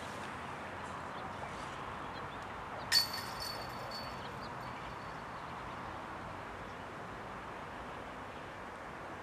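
Steady outdoor ambience with distant road traffic. About three seconds in, a single sharp metallic clink rings on for a second or so and fades.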